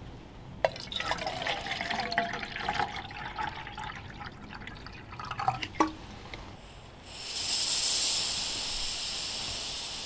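Water poured from a plastic bottle into a Toaks 750 titanium cook pot, filling it for about five seconds. About seven seconds in, a steady hiss starts: gas escaping from a small BRS canister stove with its valve opened, before it is lit.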